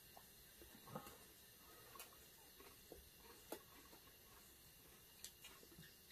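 Near silence with faint, scattered soft clicks and smacks of two people chewing egg rolls.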